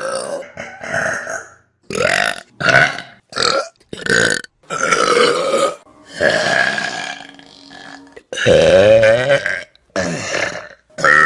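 A string of loud human burps, about ten back to back with short gaps. Most are short, and one long pitched burp near the end wavers up and down in pitch.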